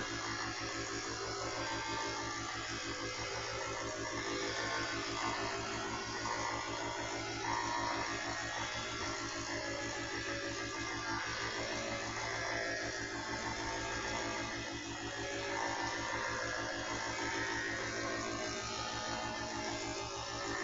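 Coopari high-pressure PCP air compressor running steadily with a fast, even pulsing hum, pumping air into a PCP air rifle's reservoir partway through a fill toward 3,000 psi.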